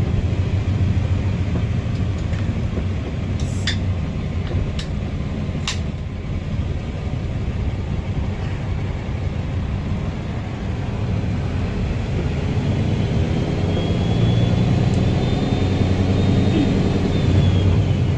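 Guy Arab III bus's engine running steadily, growing louder in the second half, with a faint high whistle that rises in about two-thirds of the way through and fades near the end. Three sharp clicks come a few seconds in.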